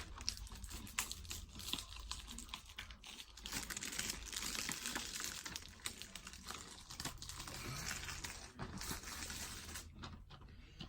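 Plastic shrink-wrap being crinkled and peeled off a DVD case: a dense run of faint crackles and small clicks, busiest in the middle.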